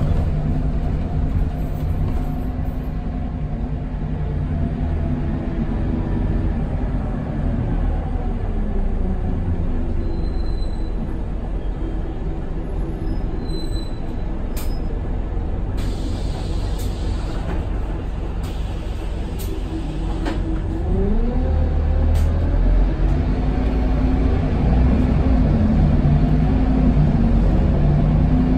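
A Scania K280UB bus's five-cylinder Scania DC9 diesel, heard from inside the passenger cabin. The engine note falls as the bus slows about a third of the way in and then runs low. A short hiss of air comes about halfway through. Near the end the revs climb and it gets louder as the bus pulls away.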